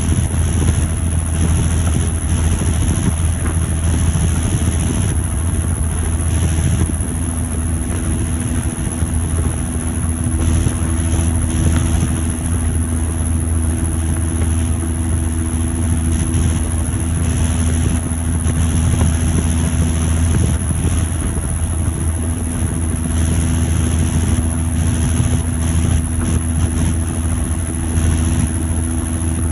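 John Deere 7530 Premium tractor's six-cylinder turbo-diesel running steadily under way on transport, with a thin, steady high turbocharger whistle above the engine note.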